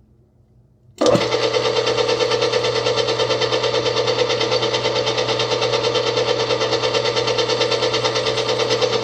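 Hobart N50 stand mixer switched on at its top speed, 3, about a second in, then running steadily: a loud, even hum with a fine, fast rattle through it.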